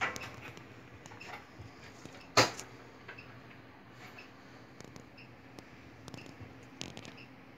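Quiet room hiss with a faint steady hum, scattered small clicks, and one sharp knock about two and a half seconds in.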